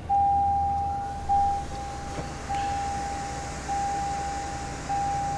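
Toyota Tundra started by push button, its engine catching and running with a low rumble, under a steady electronic warning chime in the cabin that pulses about every 1.2 s.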